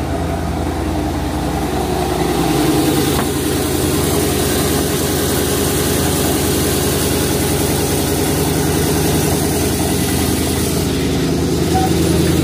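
A vehicle engine idling steadily, its hum getting a little louder and fuller about two seconds in and then holding.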